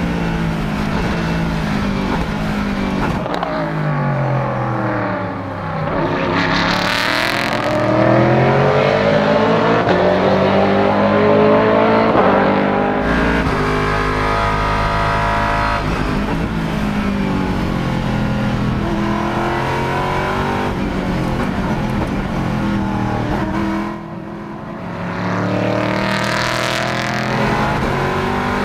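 Aston Martin Vantage GTE's 4.5-litre V8 racing engine under hard use, its pitch climbing through the gears and dropping on downshifts. Twice it goes briefly quieter as the throttle is lifted, then picks up again.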